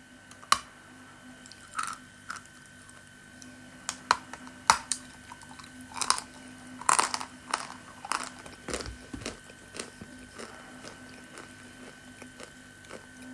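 Crisp crunching as a dry piece of Belaya Gora ('White Mountain') edible clay is bitten and chewed close to the microphone. The sharp crunches come at irregular intervals, thickest in the first nine seconds and fewer after that.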